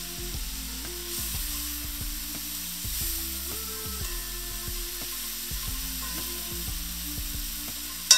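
Sofrito of onion, pepper and grated tomato sizzling in oil in a non-stick frying pan over high heat, the wine cooked off and the sofrito nearly done. A metal utensil scrapes and clicks against the pan as it is stirred.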